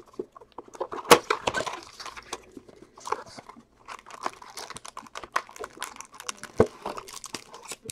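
Cardboard trading-card hobby box being torn open by hand: irregular crackling and tearing of the paperboard flap, with one sharp crack about a second in.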